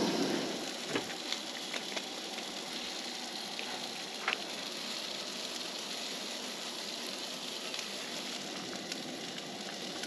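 Food frying in two skillets on a two-burner propane camp stove: a steady sizzle, with a few light clicks in the first half.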